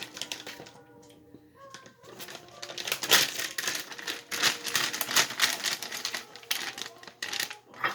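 Potato chip bag crinkling and rustling as a hand digs into the bottom of it. The dense crackling starts about two seconds in and runs to near the end.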